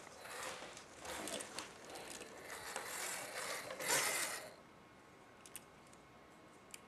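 A toy monster truck is rolled across carpet, its wheels and gears giving a mechanical rattle in uneven surges for about four and a half seconds, loudest just before it stops. Then come two faint clicks.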